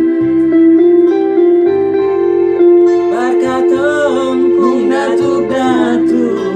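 Music from a spiritual song cover: guitar and bass under sustained notes. From about three seconds in, a melody line bends and wavers over them.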